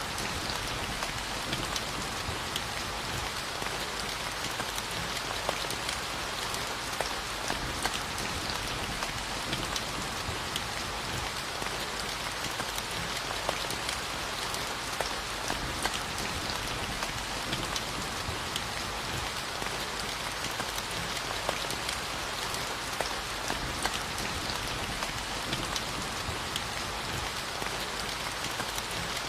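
Steady rainfall hitting a surface: a dense even hiss with many distinct drop ticks scattered through it.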